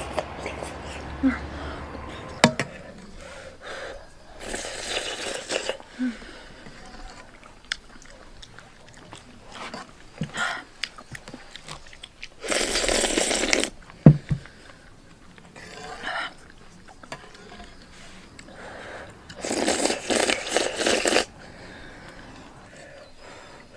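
A person eating hot, thick laba rice porridge with a metal spoon: three long slurps of a second or so each, about five, thirteen and twenty seconds in, between quieter chewing and light spoon scrapes and clicks on the bowl.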